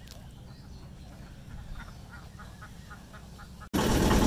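A duck giving a run of short, soft quacks in quick succession over a low background rumble. About three and a half seconds in it cuts suddenly to a much louder, steady rushing noise.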